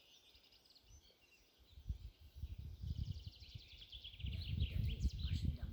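Small birds singing in rapid, high trills, with a longer trill in the second half. Under them a low, irregular rumble builds from about two seconds in.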